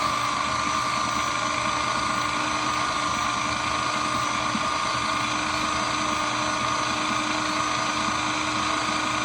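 Shredder machine running steadily under no changing load: a constant high whine over an even motor hum.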